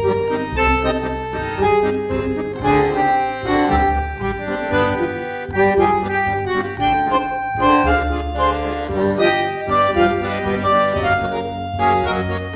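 Instrumental tango music. A squeezebox of the accordion family carries held, reedy melody notes over a bass line.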